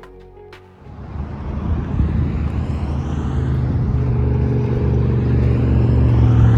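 Car on the move: engine and road rumble that comes in about a second in and grows steadily louder.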